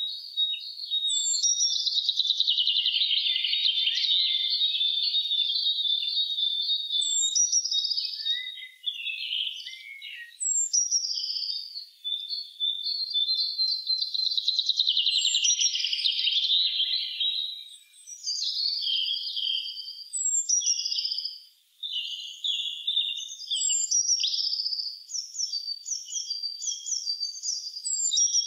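Several songbirds singing at once in spring: long rapid warbling trills overlap with short notes that slide down from high pitch every few seconds, and the song turns choppier and more broken near the end.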